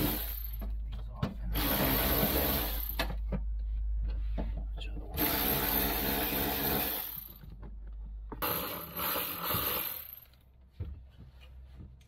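Cordless electric ratchet running in several short bursts, a second or two each, as it backs bolts out through a socket extension. The last burst ends about ten seconds in, followed by a single click.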